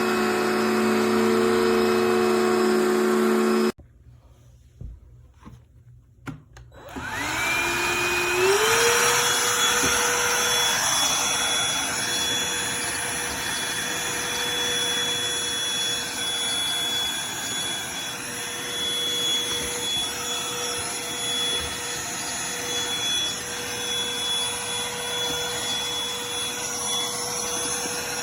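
Cordless handheld vacuum cleaner running, cut off abruptly a little under four seconds in. After a few quieter seconds with a couple of clicks, a handheld vacuum switches on, its motor whine rising in pitch as it spins up, then runs steadily.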